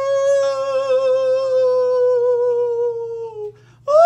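A person's voice giving a long, drawn-out spooky "oooo" moan that slowly sinks in pitch and breaks off about three and a half seconds in, then a second, higher moan starts near the end.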